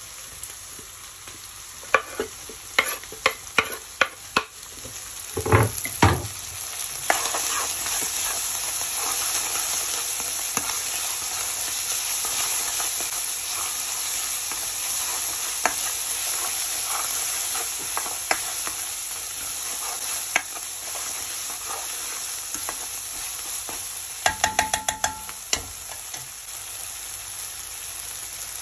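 Sliced coriander and green bullet chillies are scraped off a wooden chopping board into a pan of hot oil with a few sharp knocks, then fry with a steady sizzle as they are stirred with a spoon. A quick run of ringing taps on the pan comes a few seconds before the end.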